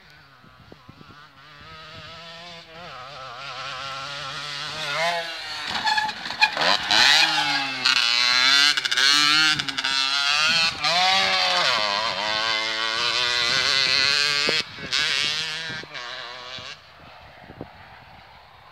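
Motocross dirt bike engine revving up and down as it approaches, runs loudest close by for several seconds, then fades away near the end.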